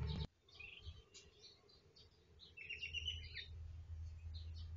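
Faint bird chirping, with a quick run of short high chirps about three seconds in, over a low hum.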